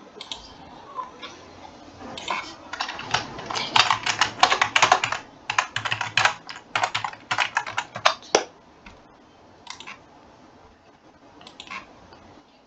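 Typing on a computer keyboard: a quick run of keystrokes for about six seconds, then a few single key clicks.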